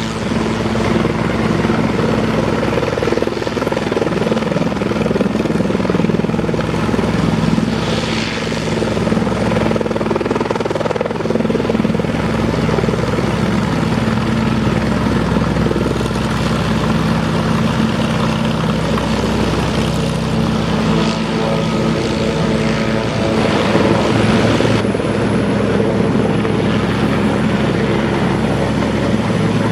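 Sikorsky S-76A twin-turbine helicopter running on the ground, a steady rotor and turbine drone while it taxis. A thin high whine rises slowly over the last few seconds as it readies for take-off.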